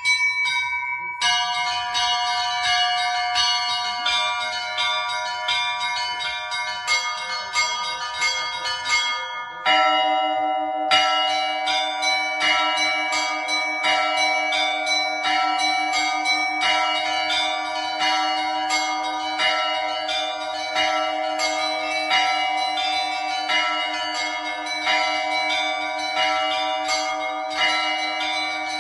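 Russian church bells rung in a zvon: a group of small high-pitched bells is struck in a quick, rhythmic pattern. About ten seconds in a deeper bell joins, and the ringing grows fuller and louder.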